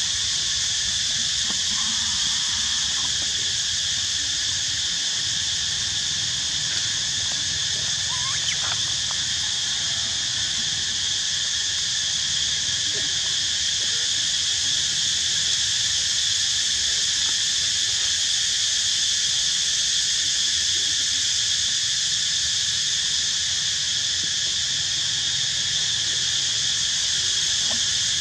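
Steady, unbroken insect chorus: a high shrill drone at an even level, with a couple of faint short squeaks about eight seconds in.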